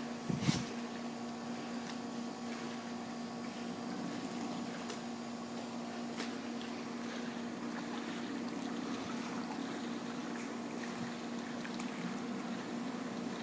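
Light water sloshing and splashing from a golden retriever paddling in a swimming pool, over a steady low mechanical hum. A brief sharp sound about half a second in.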